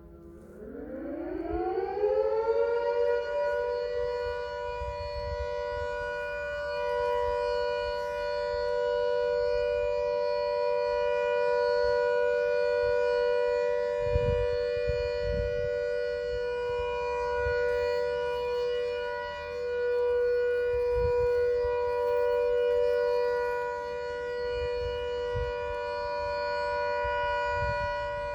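Carstairs State Hospital escape siren sounding on test: it winds up in pitch over the first couple of seconds, then holds a loud, steady two-note wail.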